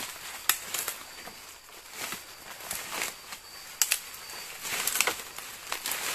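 Leaves and twigs crackling and rustling in irregular snaps as people move and shift their feet in the undergrowth, with faint high insect chirps recurring in the background.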